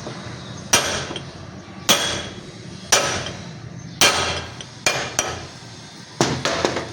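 Hammer blows on the metal of a vehicle's wheel bearing assembly, struck while changing the bearing. There are about nine sharp, ringing strikes, roughly one a second at first and coming faster near the end.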